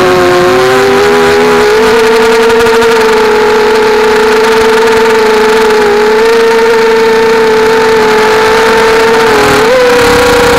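250-size FPV mini quadcopter's brushless motors and propellers whining loudly in flight, close to the onboard camera's microphone. The pitch holds mostly steady with small dips and rises as the throttle changes, stepping up near the end.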